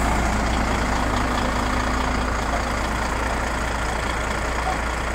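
Volvo FH16 660 truck's 16-litre inline-six diesel idling with a steady, even low hum.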